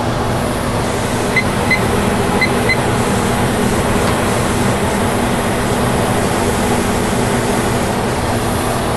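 All American pressure canner at pressure, steam venting steadily past its 10-pound regulator weight with a continuous hiss. Early on a digital kitchen timer beeps four times in two quick pairs as it is set.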